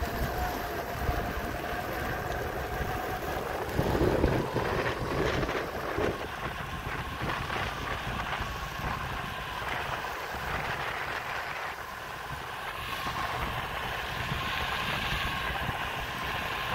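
Electric skateboard riding at speed: a steady motor whine that climbs in pitch a few seconds in as the board speeds up and again near the end, over wind rumbling on the microphone.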